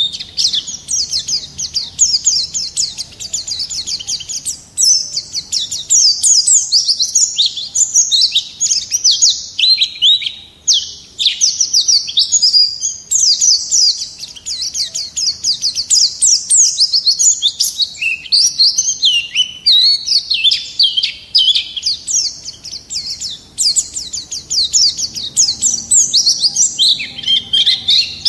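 White-eye (pleci) in full song: a fast, nearly unbroken stream of high chirps and twittering trills, with a short lull about ten seconds in.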